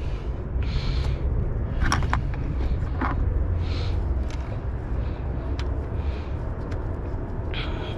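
A steady low rumble, with a few light clicks and short rustles as a catch-can hose fitting is handled and connected.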